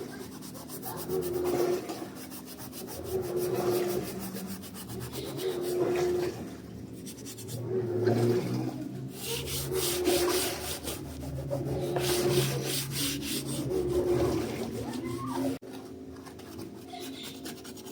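Rhythmic rubbing of a cloth or scrubbing pad over a washing machine's plastic panel as grime is scrubbed off, a stroke about every second and a half.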